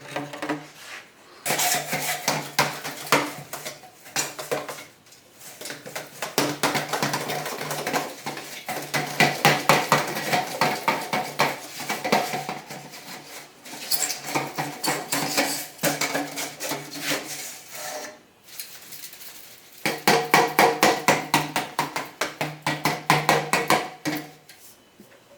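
Broom handle with a rag pushed back and forth through flexible dryer vent duct, scraping and rattling against the ribbed pipe wall in dense rapid clicks. It comes in three long strokes with short pauses between.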